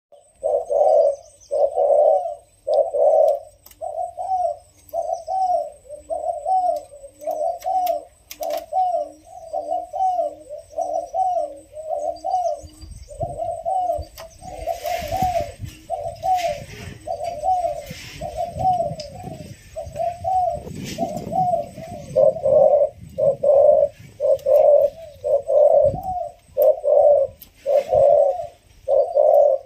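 Spotted dove, a young decoy bird, calling in challenge: a long, unbroken run of short coos, about one and a half a second, with fainter, lower notes under them in the first half. A low rumble of noise runs under the calls through the middle.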